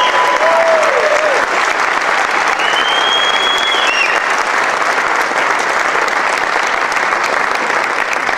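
Audience applauding steadily for a barbershop quartet's performance, with a few long, high-pitched whistles in the first half.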